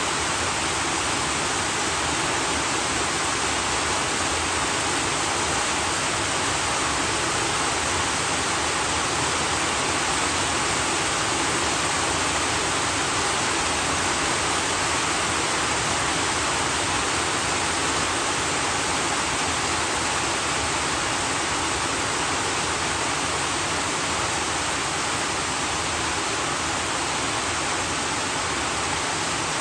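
Heavy rain falling onto a puddle: a steady, even hiss of many drops striking the water, with no single splashes standing out.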